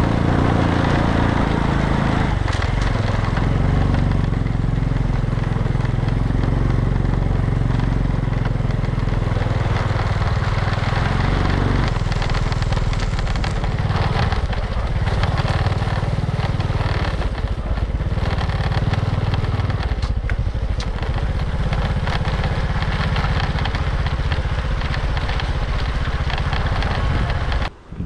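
Small motorcycle engine running steadily while riding along a bumpy dirt trail, with wind noise and occasional knocks. The sound cuts off suddenly near the end.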